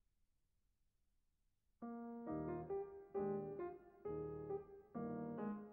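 Near silence, then piano music begins about two seconds in: a slow run of struck notes and chords, each dying away before the next.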